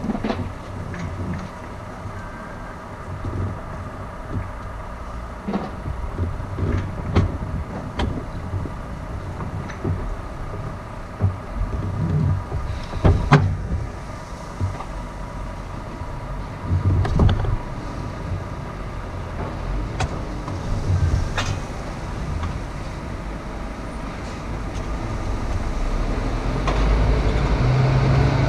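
Honda ST1300 Pan European's V4 engine and road noise while riding, with scattered knocks and rattles. The engine note swells louder near the end.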